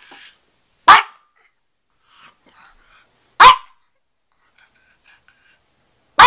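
Small Pekingese dog barking: three single, sharp barks spaced about two and a half seconds apart, the last at the very end.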